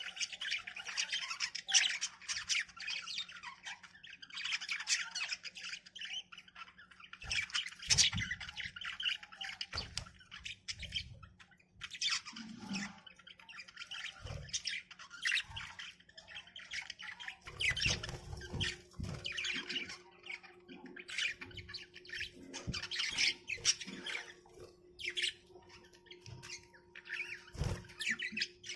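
Pet budgerigars (budgies) chattering and squawking continuously in quick, short calls. There are scattered dull low thumps and a faint steady hum underneath.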